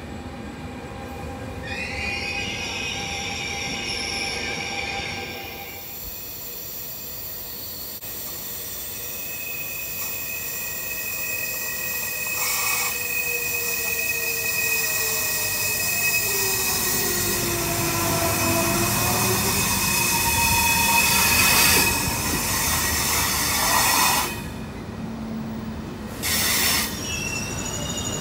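Frecciarossa high-speed electric train approaching and running through the station without stopping. It grows steadily louder for about fifteen seconds as it nears, with a high steady squeal of wheels on rails and a falling tone as it goes by. A brief wavering squeal comes a couple of seconds in, before the approach builds.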